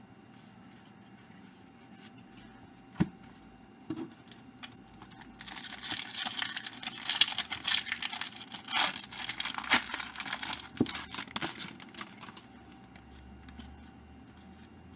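A pack of 1998 Fleer Tradition baseball cards being torn open, its wrapper crinkling and tearing from about five seconds in until about twelve seconds in. Two light knocks come before it.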